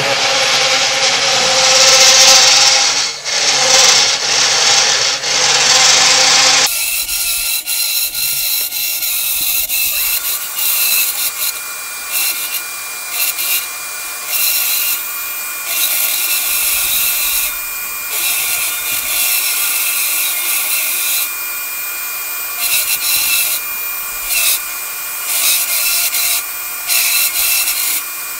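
Genmitsu 3018-Pro desktop CNC router cutting letters into hard oak: its 775 DC spindle motor runs while the end mill cuts, and the cutting noise rises and falls as the bit moves along the letter paths. It is louder for the first seven seconds or so, then drops abruptly to a quieter cut with a thin steady high whine.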